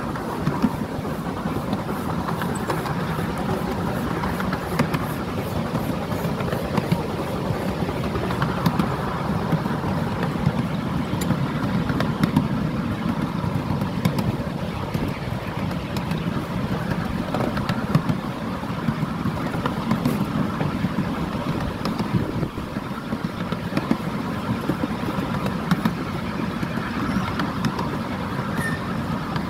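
Ride-on miniature coal-fired steam train running along its track: a steady rumble of wheels on rail with frequent irregular clicks and knocks.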